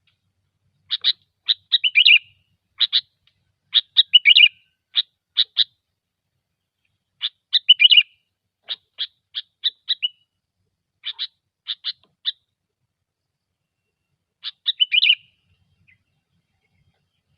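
Sooty-headed bulbul (kutilang) chattering song: quick runs of short, sharp notes in phrases a second or two apart, stopping about fifteen seconds in.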